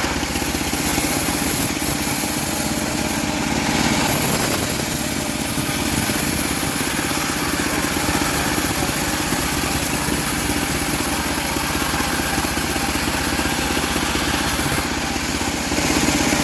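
Homemade bandsaw sawmill running steadily, its engine and blade cutting through teak wood.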